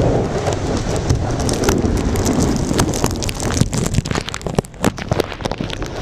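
Storm surf breaking and washing over shoreline rocks, a heavy steady rush with wind buffeting the microphone. Sharp crackling pops come thick through the middle and latter part.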